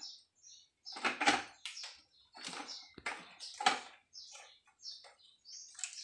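Irregular rustling and clicking of electrical wires and hand tools being handled, as a wire is worked onto a receptacle's terminal.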